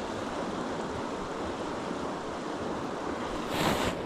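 Creek water flowing with a steady rushing noise. There is a brief louder rush near the end.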